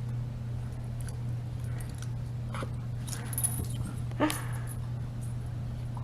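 A dog gives a short whimper that falls steeply in pitch about four seconds in, over a steady low hum and a few faint clicks.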